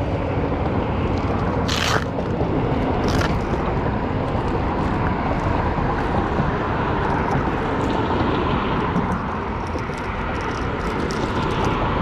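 Steady rushing of wind buffeting the camera microphone, with two sharp crackles of a clear plastic lure sleeve being handled about 2 and 3 seconds in.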